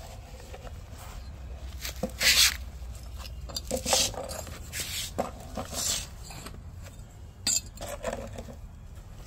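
A hand digging and raking through dry, stony soil in a plastic tub: gritty scraping and crumbling in a series of separate strokes, the loudest about two seconds in and again near the end.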